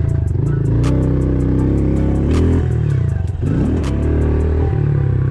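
Honda CRF110 pit bike's small single-cylinder four-stroke engine running on the throttle, its pitch rising and falling as the rider rolls off and back on. About three seconds in, the pitch drops sharply and then sweeps back up.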